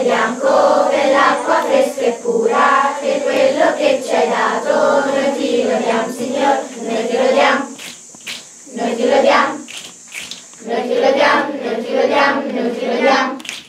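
A group of children singing a camp song together in chorus, breaking off briefly twice in the second half.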